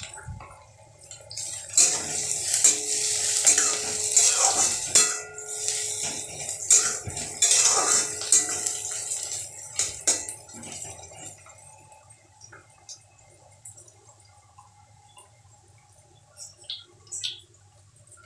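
A metal spatula stirring and scraping chopped onions and green chillies around a stainless steel kadai, clinking against the pan. The stirring runs for about nine seconds, then gives way to a few light clicks.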